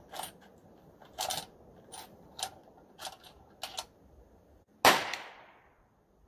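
A handful of sharp clicks at irregular intervals while the rifle scope's turret is worked by hand, then a single loud gunshot a little under five seconds in, its report fading over about a second.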